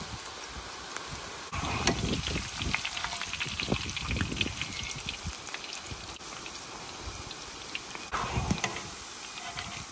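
Gram-flour pakoras deep-frying in hot oil in an iron karahi: a steady sizzle with fine crackling. It gets louder and busier for a few seconds near the start and again briefly near the end, while a perforated metal skimmer works through the oil.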